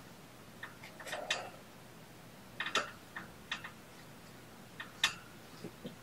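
Irregular small clicks and ticks, in a few short clusters, from a small item being handled in the fingers.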